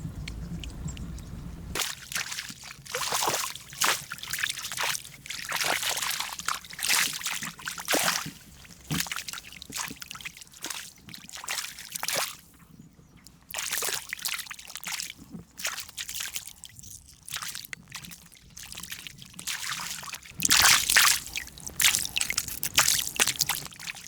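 Water sloshing and splashing in irregular bursts, with short pauses between them.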